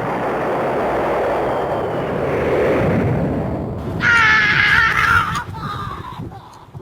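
An explosion's long rumble, dying away slowly, with a high, wavering cry over it about four seconds in.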